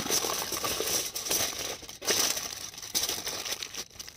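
Aluminium foil crinkling and crackling as it is crumpled by hand and pressed tight around an onion, in irregular bursts that ease off near the end.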